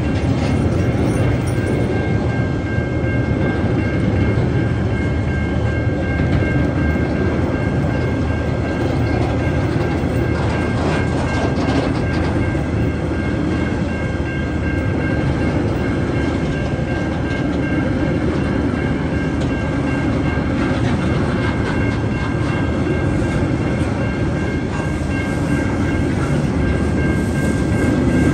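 Empty freight wagons of a TasRail train rolling steadily past over a level crossing: a continuous rumble of wheels on rail with scattered clacks over the rail joints. A steady high warning tone from the crossing's bells sounds over it.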